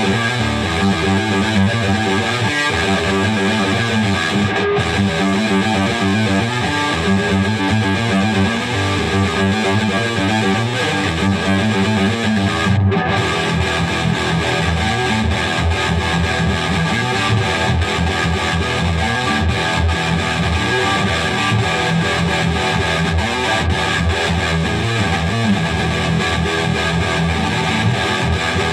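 Dean Razorback electric guitar played through heavy distortion: continuous metal riffing of fast, repeated picked notes.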